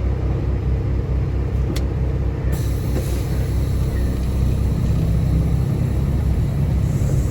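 Semi truck's diesel engine running with a steady low rumble, with a single short click about two seconds in.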